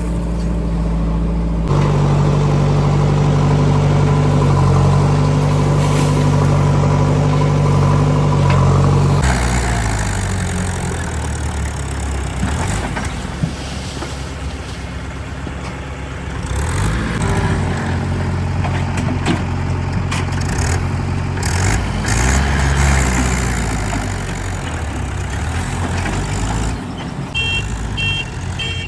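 Diesel engines of a backhoe loader and farm tractors working, running steadily with shifts in pitch and load, the sound changing suddenly twice in the first ten seconds. Near the end comes a row of short high beeps, about two a second.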